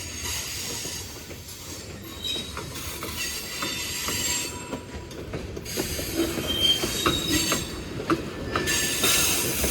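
Norfolk Southern freight train cars rolling past with a steady low rumble, a high wheel squeal that comes and goes, and scattered clicks of wheels over the rail joints.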